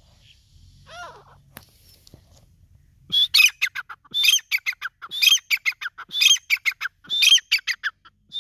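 Grey francolin calling. A soft call comes about a second in. From about three seconds in it gives its loud repeated phrase roughly once a second, five times over: each phrase is a strong high note followed by a quick run of shorter notes falling in pitch.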